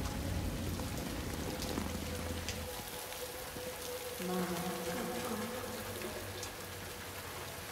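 Rain falling steadily, with a low hum under it that drops away about two and a half seconds in.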